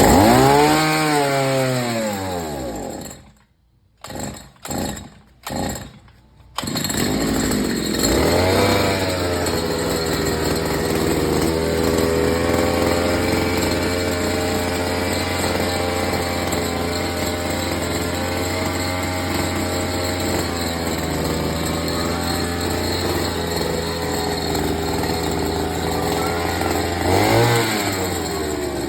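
Small grass-cutter engine fitted as a boat motor. Its pitch falls away early on, then it cuts out and sputters in short bursts. After that it runs at a steady pitch, with a brief rise and fall in revs near the end.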